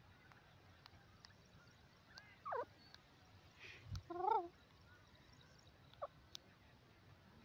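Grey francolin calling a few times: a downward-sliding note about two and a half seconds in, then a louder wavering call about a second and a half later, and a brief note near the six-second mark.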